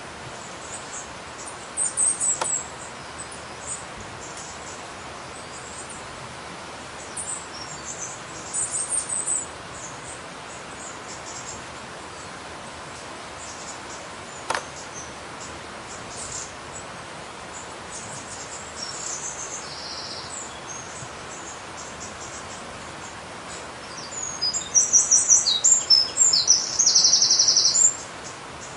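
Birds calling in short, high-pitched chirps over the steady rush of a waterfall: a burst of calls about two seconds in, another around eight to nine seconds, and a dense run of rapid chirps near the end, the loudest part. A single sharp click about halfway through.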